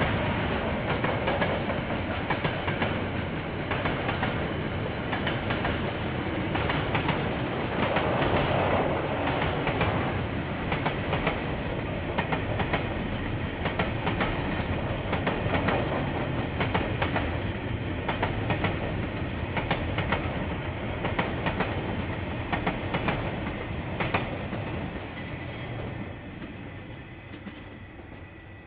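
KiwiRail train wagons rolling past, the wheels clacking over rail joints in a steady stream of knocks over a continuous rumble. The sound fades away over the last few seconds as the end of the train goes by. It is heard through a security camera's microphone.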